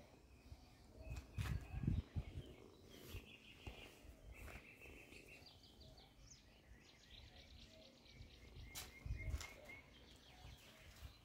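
Faint birds chirping in short, rapid trills that come again and again, with a few low thumps about two seconds in and again about nine seconds in.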